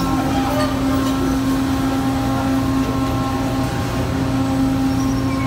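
Steady machinery hum from a large ship in a canal lock, with a held low tone and a fainter tone an octave below.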